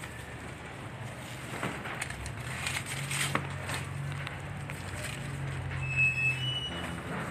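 Large melon leaves and vines rustling as they are handled, with a few sharp clicks. A steady low hum runs underneath, and a short high chirp comes about six seconds in.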